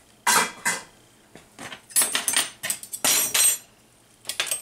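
Kitchen utensils and dishes clattering as they are cleared away: about five separate bursts of knocks and clinks, some with a short metallic ring.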